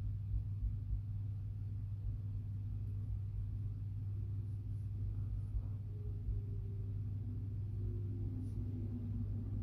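A steady low hum, with a few soft low bumps near the start and faint wavering tones later on.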